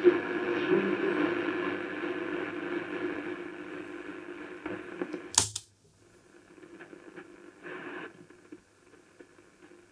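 Grundig 2140 valve radio receiving a station through its speaker, the sound fading down as the dial is turned, the set working again after its oscillator coil repair. About five and a half seconds in, a sharp click of a push-button band switch, after which only faint hiss and weak shortwave reception remain.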